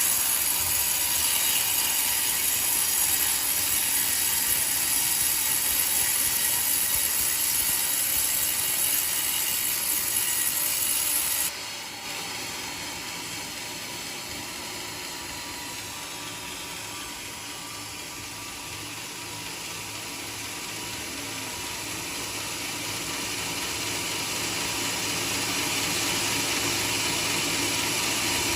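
Portable sawmill running and sawing through coconut wood, a steady mechanical noise. It drops suddenly a little over a third of the way in, then slowly grows louder again.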